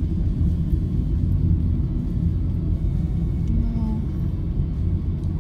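Steady low road-and-engine rumble heard from inside a moving car's cabin.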